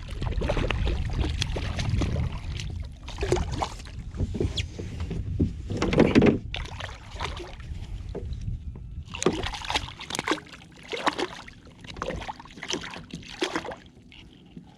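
Kayak sounds on the water: irregular splashes, drips and knocks against the hull, with a low rumble in the first few seconds.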